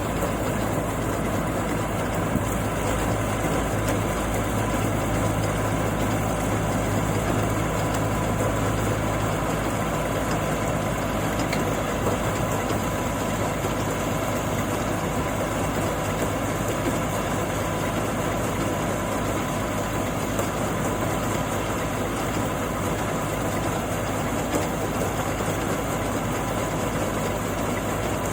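Engine of a paddy grain-handling machine running steadily at constant speed, with a low hum and a steady higher whine. The low hum swells a little for a few seconds near the start.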